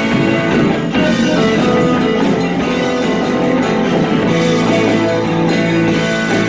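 Live rock band playing: distorted electric guitars holding sustained chords over a drum kit with cymbals.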